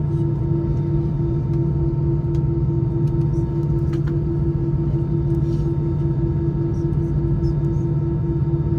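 Steady drone of an Airbus A319-111's CFM56 engines heard inside the cabin: a low hum with a higher tone that pulses at an even beat several times a second. There is a brief tick about four seconds in.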